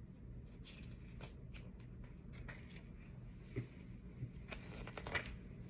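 Faint rustling and light clicks of hands handling small objects, with a quick run of clicks shortly before the end.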